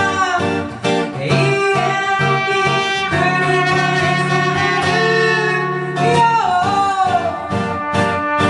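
Live song performance: singing with guitar accompaniment, a long held note in the middle of the passage.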